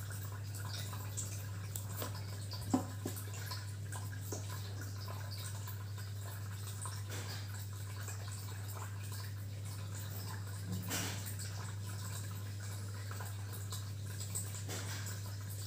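Small clicks and taps of a glass nail polish bottle and its cap-brush being handled, the sharpest about three seconds in, over a steady low hum.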